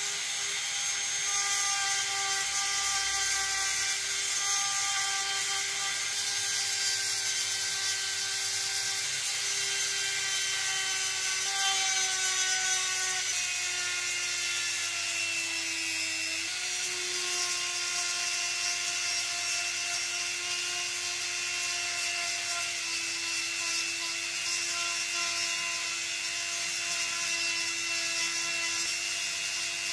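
Small high-speed electric rotary tool running steadily with a high hum. It starts abruptly, and its pitch drops a little about halfway through.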